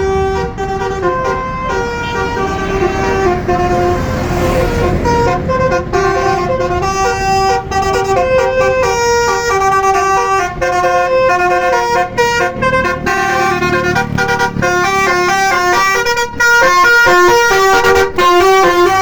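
Basuri telolet horn on a tour bus playing a tune: a long run of quick, stepped musical notes with short breaks between phrases, over a low engine rumble.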